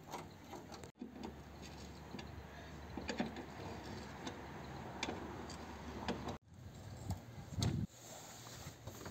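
Faint scattered clicks and knocks of tools and metal parts being handled, over a steady background hiss, broken twice by abrupt cuts.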